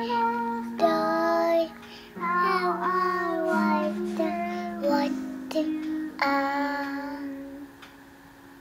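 A toddler singing a simple tune in short, high notes over backing music with long held lower notes, the singing dying away near the end.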